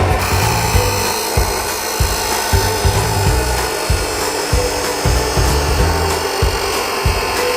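Background music with a steady bass beat over a continuous rasping noise of tool work, like filing or cutting metal, which starts abruptly at the outset.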